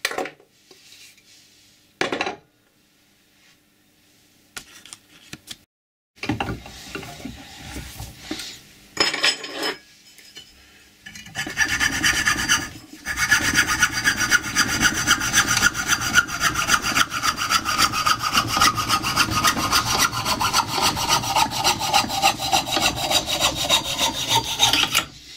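Hacksaw cutting through a wooden hammer handle in fast, steady back-and-forth strokes, taking up roughly the second half. Before that come a few short knocks and scrapes of handling.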